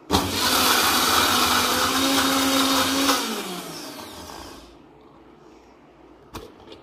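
Mixer grinder motor run in one short pulse of about three seconds, blending egg white and oil into mayonnaise, then spinning down with a falling hum once released. A single click near the end.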